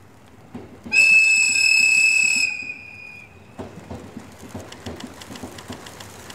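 ED75 electric locomotive's horn sounding one loud, steady, high-pitched blast of about a second and a half, starting about a second in. After it, the train's wheels click rhythmically over the rail joints as it approaches.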